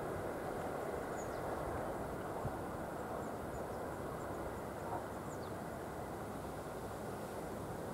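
Steady rushing wind noise on the microphone, with two faint, brief high bird chirps, one about a second in and one about five seconds in.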